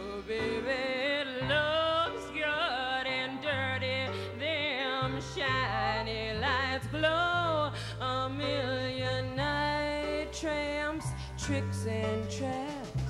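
A woman singing a long, drawn-out melodic line with a wavering vibrato over a live band's accompaniment, with held bass notes underneath.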